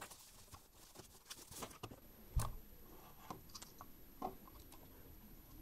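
Quiet handling noise from a Razer DeathAdder gaming mouse and its cable being picked up and turned over in the hands, with scattered light clicks and taps. The loudest knock comes about two and a half seconds in.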